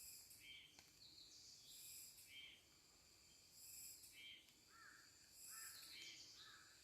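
A baby water deer snoring: faint, high-pitched wheezy breaths that come about once every two seconds.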